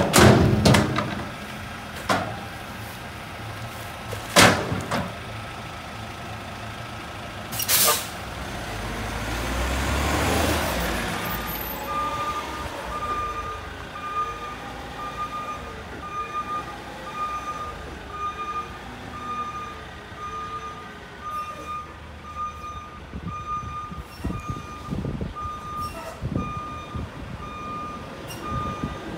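Mack front-loader garbage truck with a carry can: several sharp knocks in the first few seconds, an air brake hiss near 8 s, then the diesel engine revs up. From about 12 s on, its backup alarm beeps repeatedly as the truck backs up.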